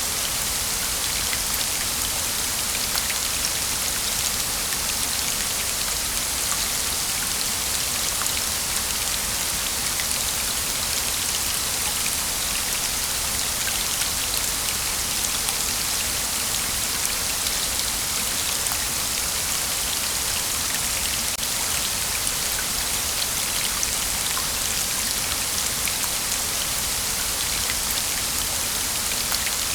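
Falling water splashing steadily: a dense, even hiss with a fine patter of drops, without birdsong.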